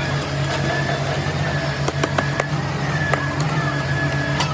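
Steady machine hum with a thin, wavering high whine above it, broken by a few sharp clicks around the middle and one near the end.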